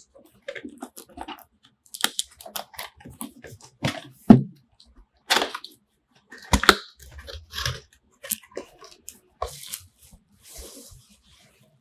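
Cardboard packaging being handled: the box slid out of its sleeve and its flaps opened, with irregular scrapes, taps and knocks, the loudest about four and six and a half seconds in. Near the end comes a crinkly rustle of bubble wrap around the contents.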